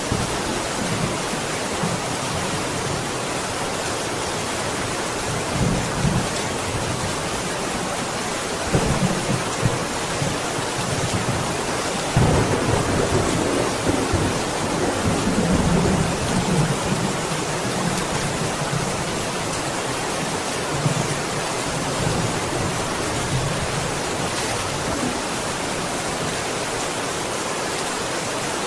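Steady heavy rain hissing, with low rolls of thunder swelling up several times, the longest rumble lasting a few seconds about halfway through.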